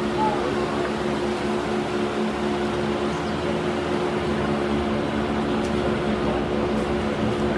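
Steady machine hum: an even drone with a few constant low tones over a hiss, like a fan or air-handling unit running.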